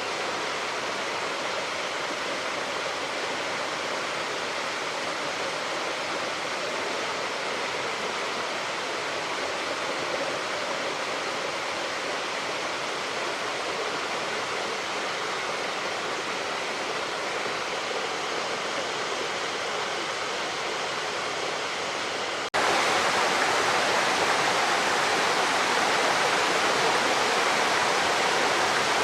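Waterfall rushing: a steady, even roar of falling water that suddenly becomes louder about three-quarters of the way through.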